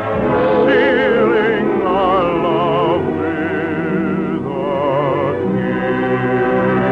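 Operatic singing in wide vibrato over an orchestra, from a 1950s radio broadcast recording.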